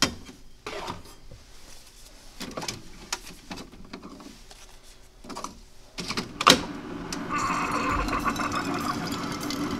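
Keurig single-serve coffee maker being loaded: clicks and knocks as a metal tumbler is set in place and the handle is worked, with a sharp click about six and a half seconds in. Then the brewer's pump hums steadily as coffee pours into the tumbler.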